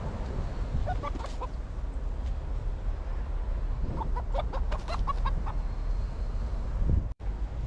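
A chicken clucking: a few quick clucks about a second in and a longer run of clucks around four to five seconds in, over a steady low rumble of wind.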